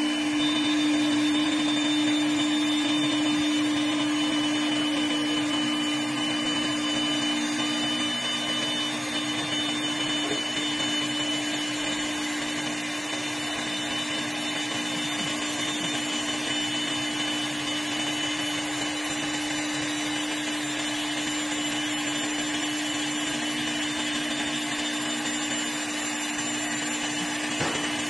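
Camel CA1530 CNC wood lathe turning a wooden cue blank: a steady motor hum with a high whine over the hiss of the cutter shaving the spinning wood.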